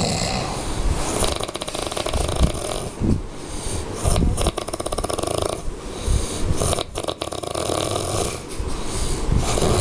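A sleeping person snoring close by: loud, rattling snores, one with each breath, five or six in a row.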